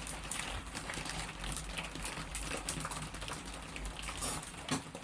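Electric potter's wheel running with a low steady hum while a wet chamois smooths the spinning clay, over a patter of rain.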